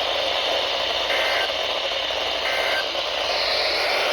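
Radio receiver hissing with heavy static on a weak signal. Two short bursts of two-tone EAS data warble come through about a second and two and a half seconds in.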